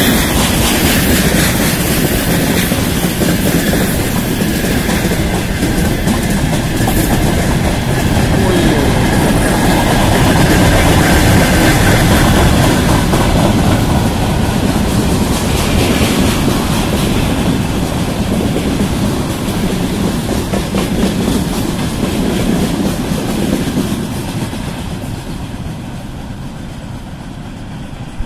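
Loaded freight train of covered hopper wagons rolling past, the wheels clattering over the rail joints in a steady loud rumble. The sound fades near the end as the last wagons draw away.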